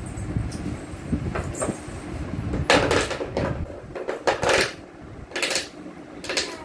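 Hollow plastic parts of a rocking-horse toy being handled and fitted together: low rubbing at first, then a run of about five knocks, clacks and scrapes of plastic from about three seconds in, as the parts are pushed to lock into place.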